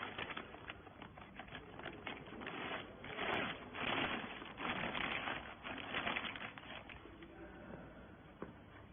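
Irregular clattering of many quick clicks and knocks over a rustling hiss, loudest through the middle few seconds and easing near the end.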